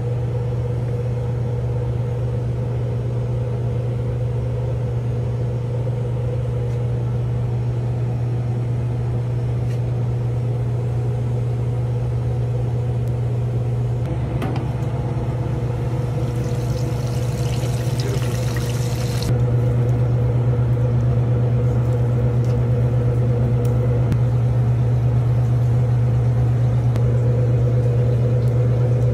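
Steady low machine hum of commercial kitchen equipment throughout. About two-thirds of the way in, a loud hissing sizzle of battered chicken going into deep-fryer oil lasts a few seconds and cuts off abruptly.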